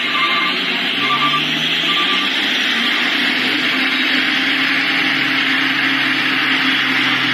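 Mitsubishi Fuso truck's diesel engine pulling uphill: a steady low drone that rises slightly about a second in, under a loud, even hiss. Three short high beeps sound in the first two seconds.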